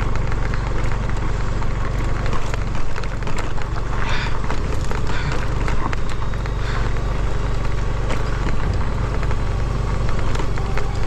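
Motorcycle engine running steadily as the bike rides along a bumpy dirt trail, with scattered short knocks and rattles.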